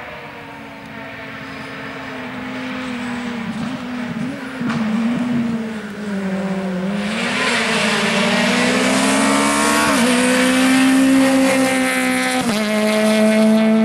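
Peugeot 208 rally car engine driven hard on a stage, growing louder as the car approaches and passes close by. Its pitch rises and falls through the gears, with sudden jumps in pitch about ten seconds in and again near the end.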